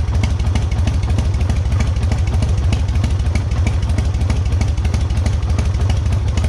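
Harley-Davidson V-twin engine idling steadily with an even low pulsing beat, its charging system freshly repaired at the stator connection and putting out about 13.7 volts at idle.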